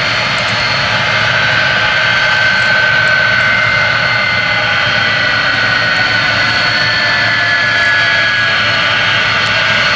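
Boeing 747-400's four turbofan engines running at taxi power as the jet rolls slowly past: a steady jet whine over a low rumble, its main whine tone sagging slightly in pitch.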